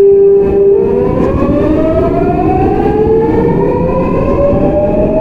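Seoul Metro 4000 series train's GEC Alsthom GTO VVVF inverter whining as the train accelerates, heard from on board over the rumble of the wheels on the rails. It holds one steady tone for about a second, then several tones climb together in pitch.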